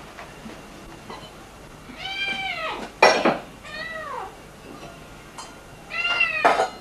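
Three short, high-pitched mewing calls, each sliding down in pitch at its end. A sharp knock comes about three seconds in, the loudest sound, and another comes near the end.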